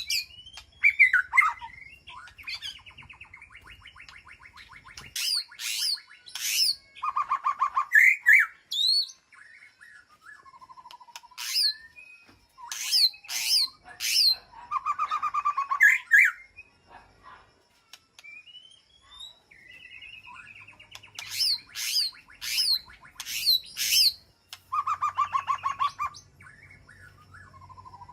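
White-rumped shama calling: runs of three to five sharp, whip-like sweeping notes, alternating with fast buzzy trills and rattles.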